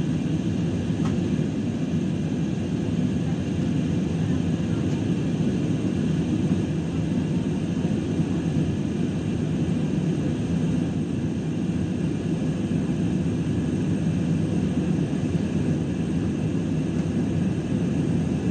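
Airliner cabin noise in flight: the engines and rushing air make a steady low rumble inside the cabin, with a faint steady high whine above it.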